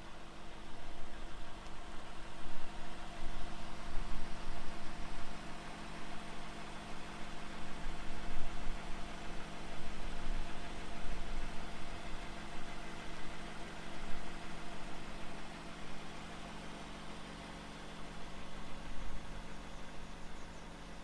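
2020 Toyota Camry TRD's 3.5-liter V6 idling steadily through its exhaust, with no revs.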